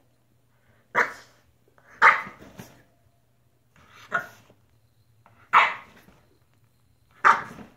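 French bulldog barking: five short, sharp barks spaced irregularly a second or more apart.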